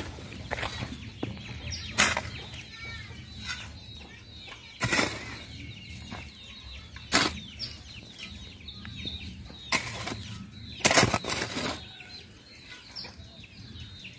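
Long-handled hoe scraping and chopping loose soil into a planting pit: about five strokes two or three seconds apart, the loudest a little before the end. Birds calling in the background.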